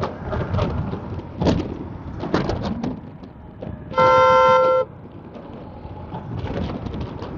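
A vehicle horn gives one steady toot just under a second long, about four seconds in, over steady road and wind noise from riding.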